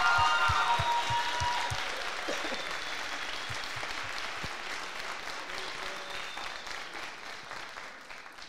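Audience applauding, loudest at first with a few cheers over it, then tapering off and dying away near the end.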